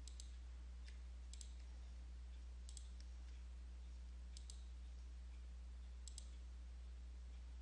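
Faint computer mouse clicks, about five or six, each a quick double tick of press and release, spaced a second or more apart, over a low steady hum.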